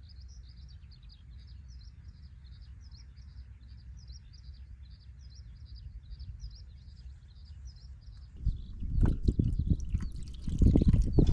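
A small bird chirping over and over in quick short notes, about three a second. From about eight seconds in, loud irregular rustling and knocking close to the microphone drowns it out.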